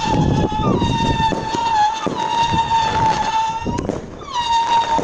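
Whistling fireworks going off in quick succession: a steady high whistle, each new one starting with a short downward slide, with hardly a gap between them. Crackling and pops run underneath, and there is a sharp crack near the end.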